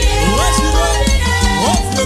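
Upbeat live African gospel praise band playing an instrumental passage: a heavy, steady bass and percussion groove under a melodic lead line whose notes slide up into pitch.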